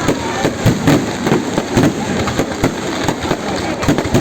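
Fireworks display going off in a rapid, continuous barrage: many bangs and crackles several times a second, overlapping into a constant din.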